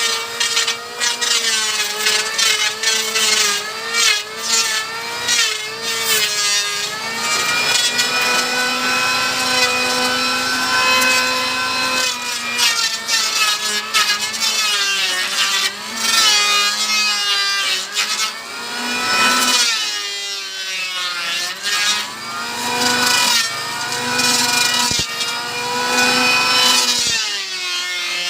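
Electric wood planer running and shaving wood: a steady motor whine over a rasping cutting noise, its pitch wavering and dipping briefly several times as the cut loads the motor.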